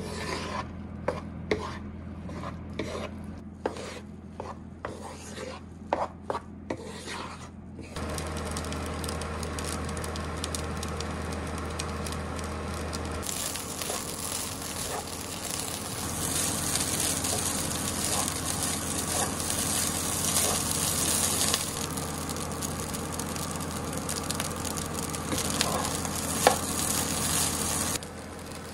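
Wooden spatula scraping and turning egg-coated rice in a nonstick frying pan: separate strokes for the first several seconds, then steady sizzling with continuous stirring as the rice fries.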